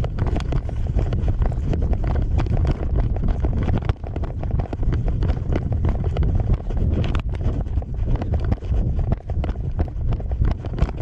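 Wind buffeting the microphone: a loud, steady low rumble with dense crackling throughout.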